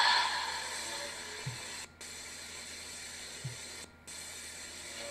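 Hissing radio static from a recording of a hijacked FM broadcast, played over the room's speakers. It is loud at first, settles within a second to a steady hiss, and is broken by two brief dropouts as the playback is skipped ahead.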